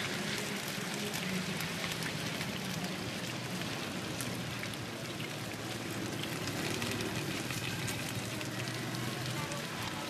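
Steady sizzle of Cambodian leek cakes (nom kouchay) frying in shallow oil in a wide wok, with small crackles scattered through.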